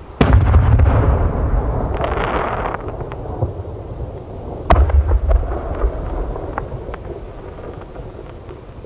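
Aerial firework shells bursting: a heavy bang with a long rolling echo just after the start, a second sharp bang about halfway through, and scattered small crackles in between.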